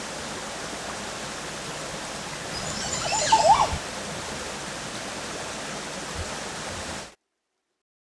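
Steady rush of a shallow stream flowing, with a short, louder cluster of chirping sounds about three seconds in. The water sound cuts off suddenly about a second before the end.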